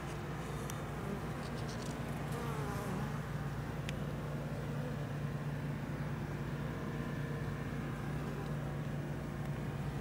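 Honeybees buzzing in a steady low hum.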